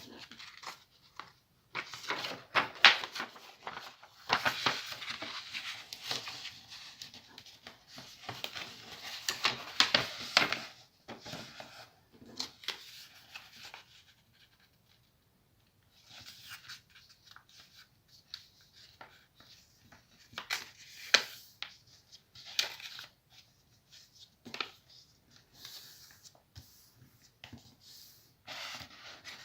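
Sheet of paper rustling and crackling as it is handled, folded and creased by hand. The sound comes in irregular bursts, busiest in the first half, with a short pause past the middle and then sparser crinkles.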